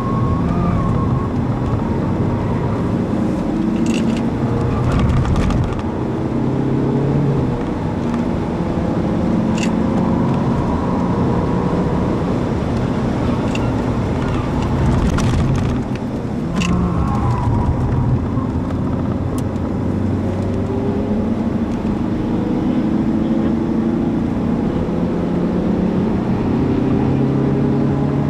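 Inside the cabin of an Audi A4 2.0 TDI 170 hp driven hard on a race track: the four-cylinder turbodiesel pulls through the gears, its pitch rising slowly and dropping at each change, over steady road and wind noise. A few sharp clicks come through.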